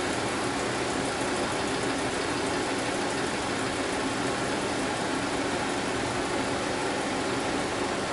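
Home-built Rudy Kouhoupt Radial 5 five-cylinder model radial engine running steadily on compressed CO2, a dense even hiss of exhaust with a faint hum under it.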